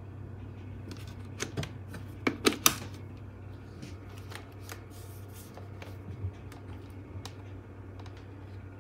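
Scattered light clicks and knocks of handling, with a few louder ones about one and a half to nearly three seconds in, over a steady low hum.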